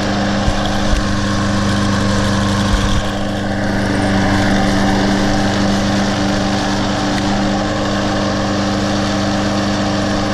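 Snapper Easy Speed Hi-Vac walk-behind mower's Briggs & Stratton 7.0 Intech overhead-valve engine running steadily, with a few brief knocks in the first three seconds.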